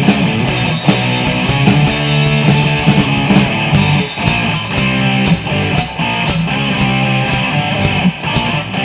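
Rock band playing an instrumental passage: distorted electric guitar, bass and drums.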